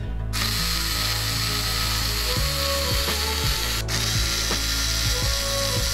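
Ozito 3.6 V cordless screwdriver running, backing a screw out of a wooden bed rail. It starts about a third of a second in and stops for an instant near the middle.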